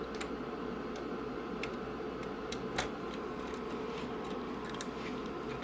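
A few faint, scattered clicks and ticks of a small Torx screwdriver working the tiny screws out of a circuit board, over a steady background hum.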